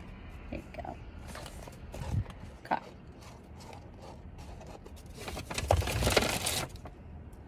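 Someone eating truffle fries: a few light handling clicks from the open fry carton, then crunching and chewing on a crispy fry, loudest a little over five seconds in and lasting about a second.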